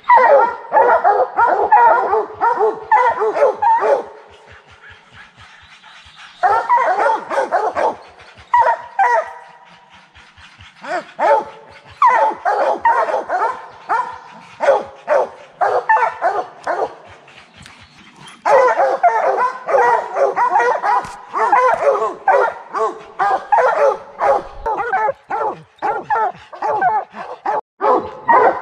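A pack of bear hounds barking treed at the foot of a tree, many dogs' barks overlapping in dense bursts, with short lulls about four and ten seconds in. This steady tree barking is the sign that the hounds have a bear treed.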